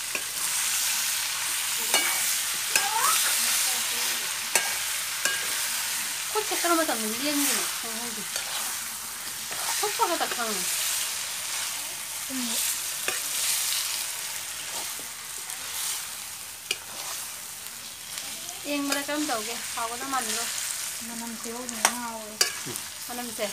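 Chicken curry sizzling and frying in a metal pan while a metal spoon stirs it, scraping and clicking against the pan. Several short squeaky sliding tones come and go over the sizzle.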